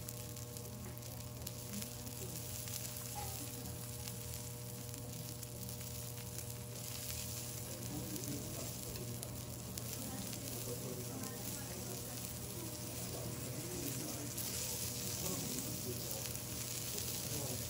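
A5 wagyu beef sizzling on a steel flat-top griddle: a steady crackling hiss of fat frying, a little louder in the second half.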